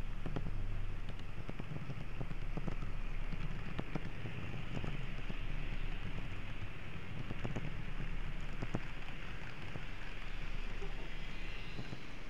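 N-gauge model train with an onboard camera running along the layout's track: a steady low rumble from the wheels and motor, with irregular short clicks as the wheels cross rail joints and points.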